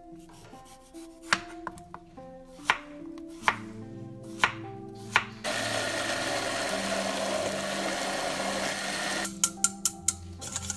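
A knife strikes a wooden cutting board several times, cutting cantaloupe. Then a countertop blender runs for about four seconds, puréeing the melon. Near the end a wire whisk clicks rapidly against a stainless steel bowl, beating egg yolks.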